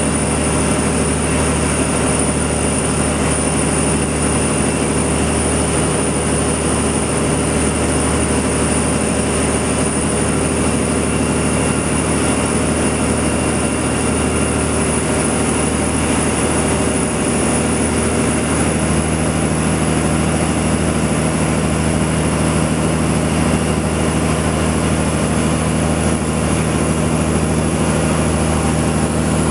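Fishing boat's engine running steadily: a low, even drone with a thin high whine above it.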